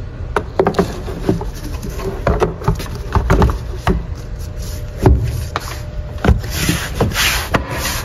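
Plastic engine cover of a Toyota V6 being refitted: a series of clicks and knocks as it is seated and its fasteners are worked with a socket wrench, with a short rasping noise near the end.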